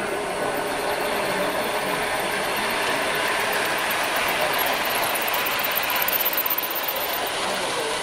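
A large-scale garden-railway model of a Rhaetian Railway Crocodile electric locomotive and its hopper wagons rolling past, with the gear drive whirring and the wheels clicking on the track. It is loudest as the train passes, about six seconds in.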